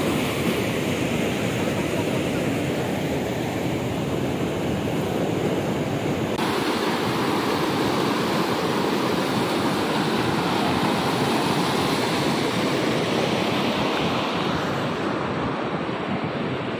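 Fast mountain stream rushing over rocks in white-water rapids: a steady, even rush of water, with some wind on the microphone. Its tone shifts slightly a little over six seconds in.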